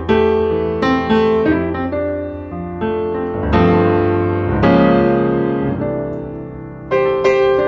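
Background piano music: chords struck about once a second, each ringing out and fading.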